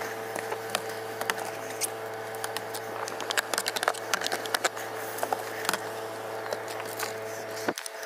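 Snow brush sweeping snow off a car's windows and mirror: many short, uneven brushing and scraping strokes over a steady low hum.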